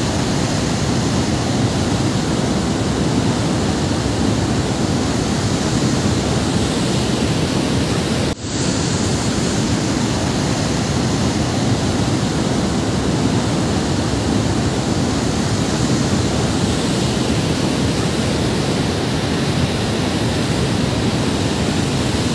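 Fast-flowing floodwater in a swollen river, a loud steady rush of churning water, broken by a brief dropout about eight seconds in.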